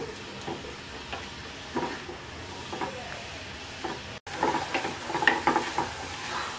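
Wooden spatula stirring and scraping grated coconut with date-palm jaggery in a nonstick wok, over a steady sizzle as the jaggery's liquid cooks off and the mixture turns sticky. There is a momentary gap just after four seconds in, and the scraping is busier after it.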